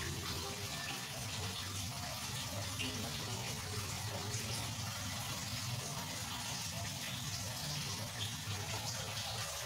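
Steady running, splashing water of a home aquarium, with a low hum underneath.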